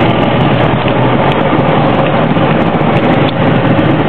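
Diamond Eclipse light aircraft's engine and propeller running steadily, heard from inside the cockpit.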